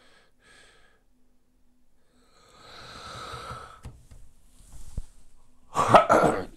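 A man with a cold making breathing noises: a long, audible breath out, then a short loud cough near the end.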